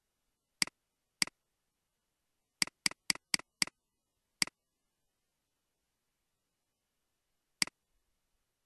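Computer mouse clicks, nine sharp single clicks with silence between: two early on, a quick run of five about a quarter second apart a little under three seconds in, one more at about four and a half seconds, and a last one near the end.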